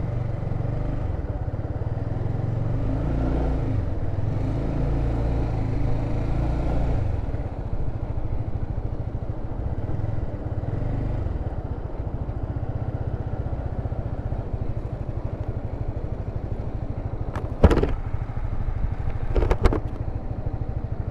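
Motorcycle engine revving lightly as the bike pulls away slowly in first gear, then running steadily at low revs. Two sharp knocks near the end.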